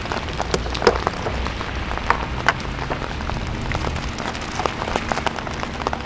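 Heavy rain falling, an even hiss with many separate drops ticking sharply close by.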